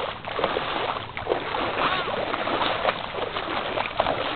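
Feet wading and splashing through ankle-deep seawater on a tidal flat, an irregular steady sloshing, with a few brief high calls in the background.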